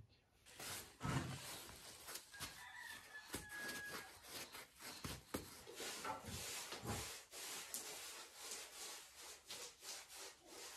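Paint brushes scrubbing lime milk paint onto a rough clay plaster wall: a dense, irregular run of scratchy strokes. A short faint high tone sounds about three seconds in.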